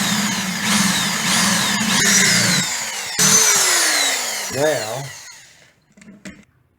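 Power drill boring pilot holes out to full size in the wooden cabinet panel, making room for the saw blade. The motor runs steadily for about three seconds, then winds down with a falling whine, and a couple of light clicks come near the end.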